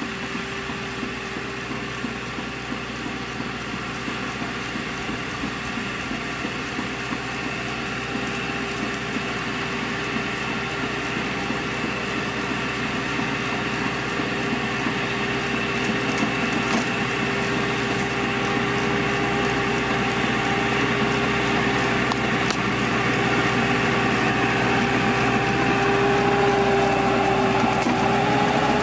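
Tractor-mounted pruning machine running: the tractor engine and the pruner's cutter drive give a steady whine, growing louder as the machine comes closer.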